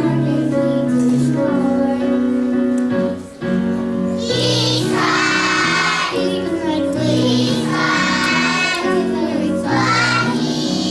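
A group of children singing a song over instrumental accompaniment. Held backing chords run throughout, and the voices come in strongest in three phrases over the second half.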